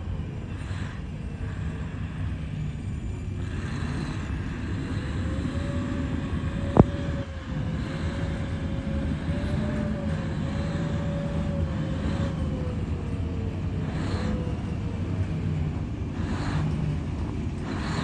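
Large XCMG mining haul truck running as it drives, a steady low rumble with a faint whine that drifts up and down in pitch. A single sharp click about seven seconds in.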